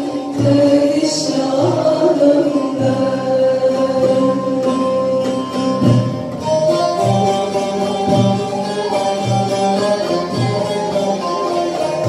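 Live Turkish folk song (türkü): a woman sings the lead over bağlama and a frame drum keeping a steady beat, roughly one stroke a second. The sung line is most prominent in the first few seconds, after which held instrumental notes carry the tune.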